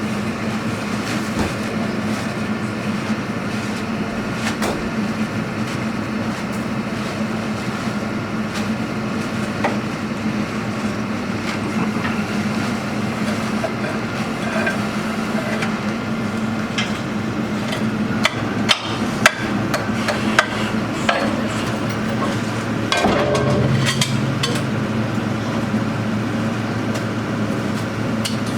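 Borehole drilling rig's engine running steadily, with sharp metal knocks and clanks as the drill rods and bits are handled, several in quick succession about two-thirds of the way through.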